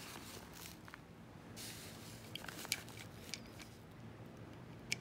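Faint handling noises of a hand tool working at a condenser on a metal ignition stator plate: a few light clicks and a short scrape.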